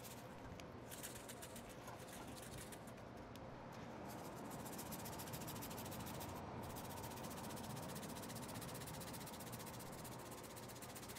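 Shaker bottle of dry barbecue rub shaken over a raw brisket, the granules rattling faintly. Scattered rattles at first, then a fast, steady rattle from about four seconds in.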